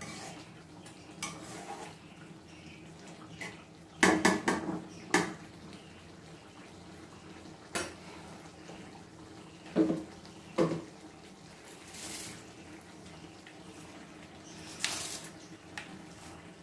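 Pots, pans and metal utensils clattering now and then during cooking. A burst of knocks comes about four seconds in, then a few single clinks a couple of seconds apart, over a faint steady hum.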